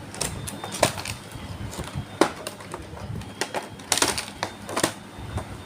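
Handling of Hot Wheels toy cars and their packaging: a run of irregular clicks and taps, with two short crinkling bursts about four and five seconds in.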